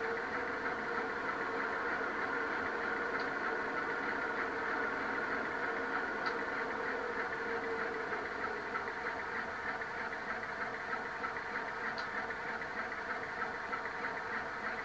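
Bachmann Class 47 model locomotive's DCC sound decoder playing a diesel engine running steadily through its small onboard speaker, thin, with little bass.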